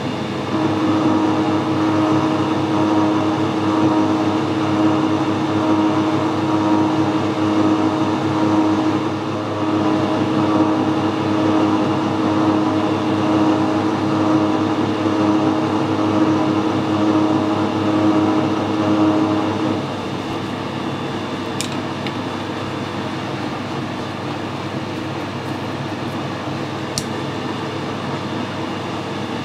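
Metal lathe running slowly at about 60 RPM while a hand reamer in the tailstock drill chuck cuts through an oiled bore: a steady machine hum with a steady tone that drops away about 20 seconds in, leaving a quieter hum. Two brief ticks near the end.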